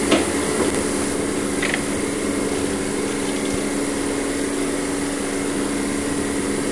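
Steady hum of a bathroom ventilation fan, with a light knock just after the start as the film developing tank is set down to rest.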